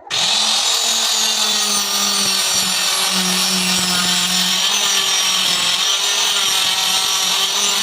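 Electric hand cutter mounted under a homemade table saw top, running steadily at constant speed while its blade cuts wood.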